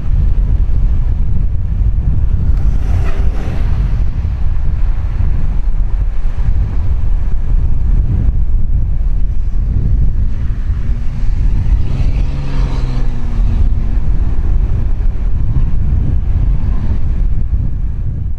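Strong wind buffeting the microphone outdoors: a loud, steady low rumble. Faint, brief pitched sounds come through about three seconds in and again around twelve seconds.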